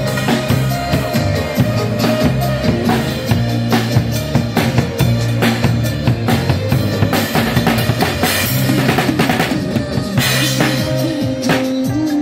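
Live band music: a drum kit played steadily, with bass drum and snare hits, over bass notes and electric guitar through small PA speakers. It is a rough phone recording.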